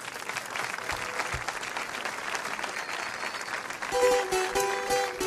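Audience applauding, the clapping swelling at first; about four seconds in, the folk group's plucked strings, guitars among them, come in with the first notes of the song.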